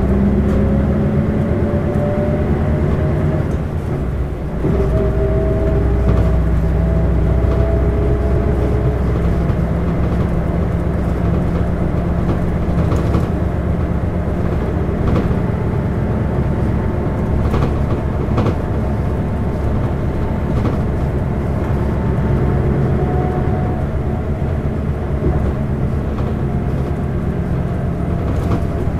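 Isuzu LV city bus's 8PE1-N V8 diesel engine pulling under way: a low rumble with a whine that rises in pitch as it accelerates, drops with a gear change about four seconds in, climbs again, then holds steady at cruising speed.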